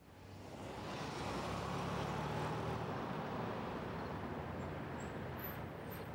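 A car driving away along a city street: engine and tyre noise swells over the first second, holds, then slowly fades.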